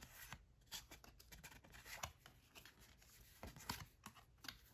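Faint rustles and soft clicks of tarot cards being handled, single cards sliding against the deck as they are taken out and shown, a few separate touches scattered through a near-silent room.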